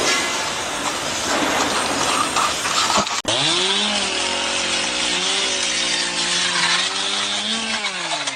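A steady noisy clatter for about three seconds, then after an abrupt break a small two-stroke engine, typical of a chainsaw, revs up quickly and runs at high, steady speed, easing off slightly near the end.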